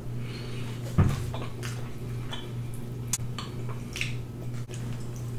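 Mouth sounds of eating barbecue pork ribs: chewing, lip smacks and finger licking, heard as scattered small wet clicks over a steady low hum, with a louder bump about a second in.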